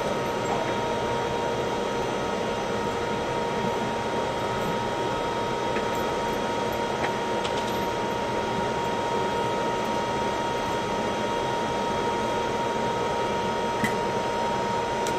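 Steady mechanical hum with a constant high-pitched tone running through it, like a ventilation fan, with no gunshots.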